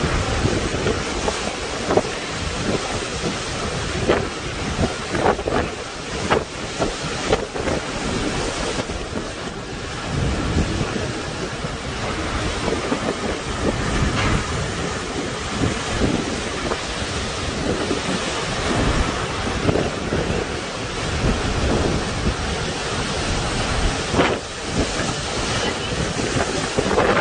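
Tropical cyclone wind and heavy rain, with gusts buffeting the phone's microphone in uneven sharp surges.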